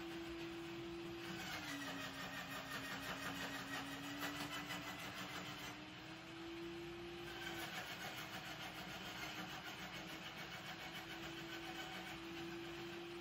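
A faint, steady engine hum with a rapid fine rattle. Its pitch drops slightly about one and a half seconds in and rises again about six seconds in.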